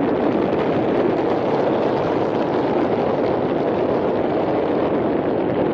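Steady rushing noise of wind buffeting the microphone, mixed with the rumble of a train passing beyond the trees.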